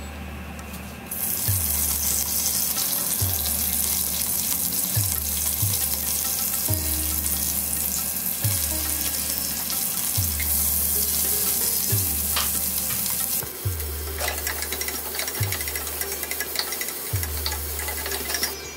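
Hot oil frying loudly in a pressure cooker pan, the sizzle jumping up about a second in as curry leaves and green chillies go into the oil with fried cashews. The sizzle eases near the end while onions fry and a wooden spatula stirs and scrapes the pan.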